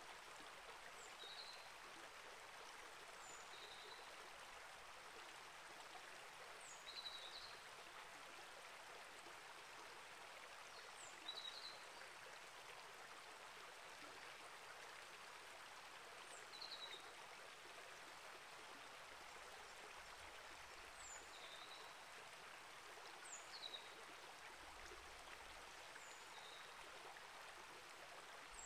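Small rainforest creek flowing with a soft, steady rush of water. A bird gives short, high chirps every few seconds over it.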